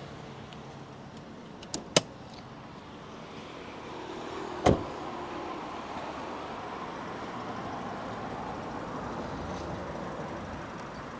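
Car body being handled while moving from the cabin to the engine bay: two light clicks about two seconds in, then a single louder thump a little later, over a steady background hum.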